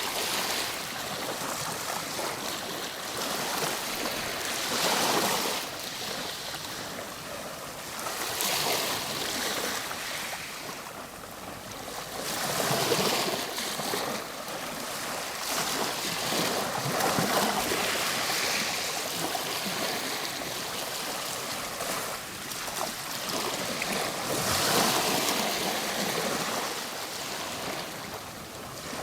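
Ocean waves surging and washing on a shore, the surf swelling and falling back every three to five seconds.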